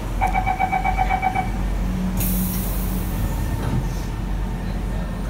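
Door-closing warning on a Siemens C651 metro train: a rapid beeping, about seven beeps a second, lasting just over a second, then a short hiss about two seconds in, over the train's steady low hum.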